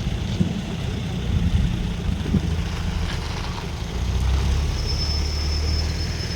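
Motor vehicle engine running with a steady low rumble, growing louder about two-thirds of the way through, when a thin high steady whine joins it.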